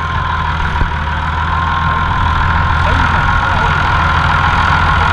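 Massey Ferguson 6170 Dyna-Shift tractor's six-cylinder engine running steadily while ploughing with a four-furrow reversible plough, with a steady whine on top, getting slightly louder as the tractor comes nearer.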